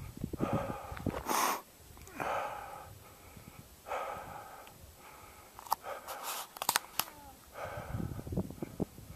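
A hiker's heavy breathing close to the microphone, a breath about every second and a half, with a few sharp clicks in between.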